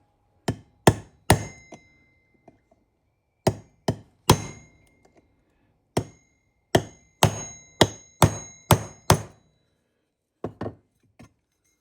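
Hammer blows on a 5/32 steel pin punch, metal on metal with a short ring after each strike, driving the roll pin out of the garage door opener's gear shaft. The blows come in bursts: three, three more, a run of about seven, then a few lighter ones near the end.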